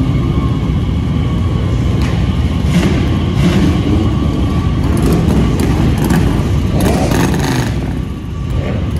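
Loud vehicle engines running and revving: a deep rumble with several louder surges, the strongest about seven seconds in.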